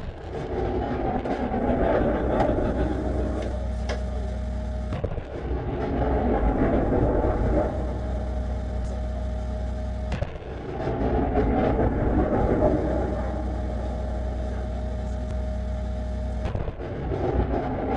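Heavy military truck's diesel engine running with a steady hum, alternating every few seconds with stretches of louder, rough rumbling noise that swells up over about a second.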